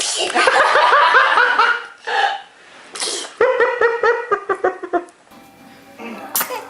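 A young child laughing, high-pitched, in two quick runs of rhythmic 'ha-ha' pulses of about a second and a half each, with short breathy bursts between them.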